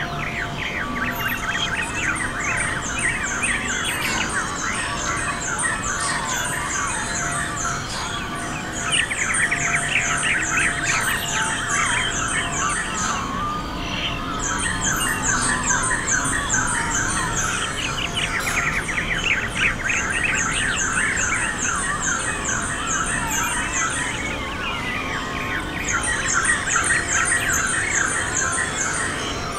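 Many birds squawking and chattering at once. A high, rapid trill comes in phrases of two or three seconds, repeating every few seconds.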